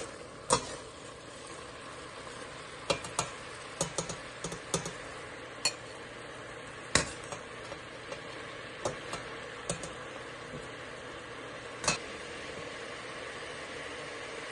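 Slotted spoon scooping boiled shrimp and squid rings out of a stainless steel pot into a china bowl: irregular sharp taps and clinks of the spoon against the pot and the bowl, over a steady hiss.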